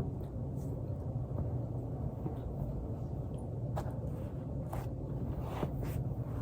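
Steady low background hum, with a sharp click at the very start and a few faint clicks between about four and six seconds in.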